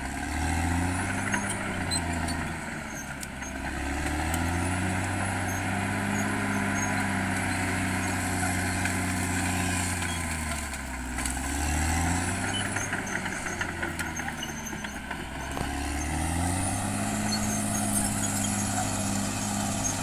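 Caterpillar D6R XL bulldozer's diesel engine working a blade through brush and soil, its note sagging and climbing back several times, over a steady clatter.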